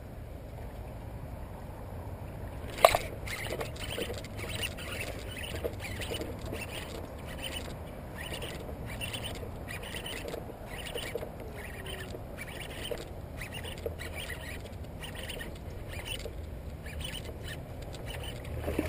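A sharp click about three seconds in, then a baitcasting reel and rod worked in short, even pulses, roughly one and a half to two a second, as a Zara Spook topwater lure is walked back and forth with a slow cadence.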